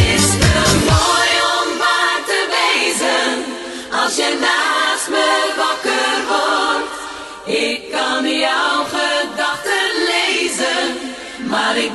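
Dutch-language pop song in an instrumental break: the bass drops out about a second in, leaving layered choir-like voices singing without words.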